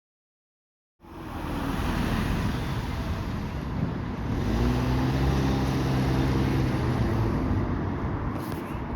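Road traffic noise that cuts in abruptly about a second in, with a motor vehicle engine running steadily through the middle.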